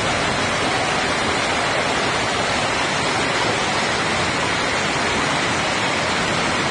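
Heavy rain and floodwater rushing through a street, a steady, dense noise with no let-up.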